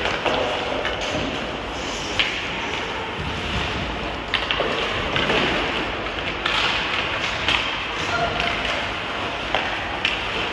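Ice hockey play: a steady wash of skates on the ice, with several sharp clacks of sticks and puck.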